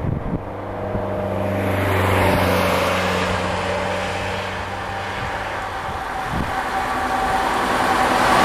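DD13 diesel-hydraulic locomotive hauling tank wagons, approaching with a steady engine drone that grows louder, mixed with the noise of road traffic passing close by.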